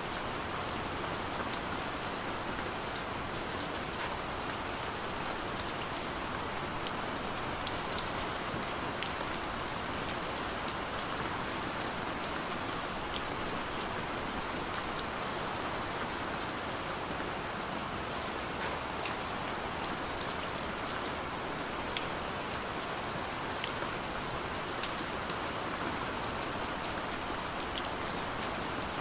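Steady gentle rain falling, an even hiss with scattered sharp ticks of individual drops hitting a surface.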